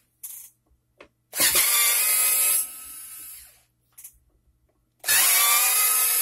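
Cordless electric screwdriver running in two short bursts, each spinning up with a quick rise in pitch, as it backs screws out of the metal base of an LED moving-head light. A few small clicks in between as screws are handled.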